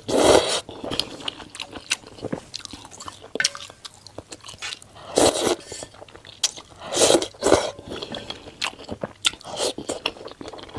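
Slurping potato-starch noodles out of a spicy soup, in loud sucking bursts near the start and again about five and seven seconds in, with wet chewing and mouth clicks between.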